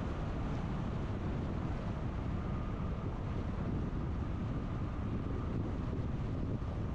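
Steady rumble of a car driving along a city road, tyre and engine noise with some wind noise on the microphone.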